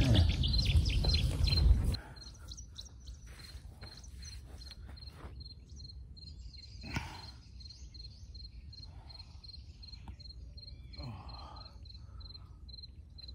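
A cricket chirping steadily, short high pulses about three a second. For the first two seconds a louder low rumble covers it, then cuts off abruptly; after that come faint knocks and rustles of handling gear, with one sharper knock near the middle.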